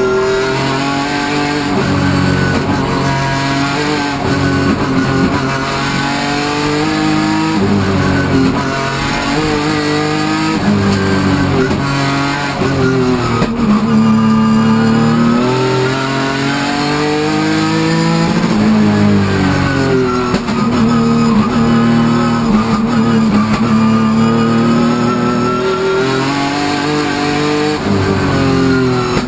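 Hyundai Genesis Coupe hill-climb race car's engine, heard from inside the cabin, revving hard with its pitch rising and falling again and again as it accelerates up the mountain road. Guitar music plays over it.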